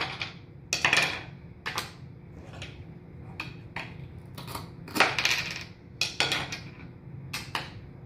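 Toy knife knocking and scraping on a small wooden cutting board as a toy cucumber is sliced: irregular clacks, with longer scrapes about a second in and again about five seconds in.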